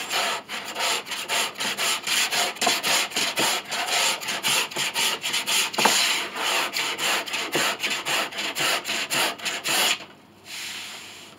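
A wooden piece being sanded by hand in quick, even back-and-forth strokes to fit it into place against the pinblock. The strokes stop about ten seconds in.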